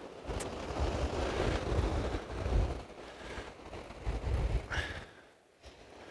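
Wind buffeting the microphone in uneven gusts over the wash of small waves breaking on the shore; the gusts drop away briefly near the end.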